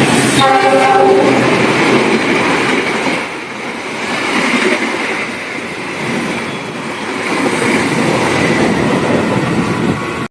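Train running past at speed: a loud, steady rush of wheels on the rails that swells and eases, with a brief horn note right at the start.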